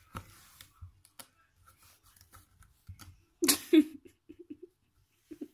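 A cat's claws scraping and catching on a sisal scratching post as it grabs and kicks at it: soft scattered rasps and clicks. About three and a half seconds in comes a short, loud, breathy voice sound, like a giggle, followed by a few brief squeaky blips.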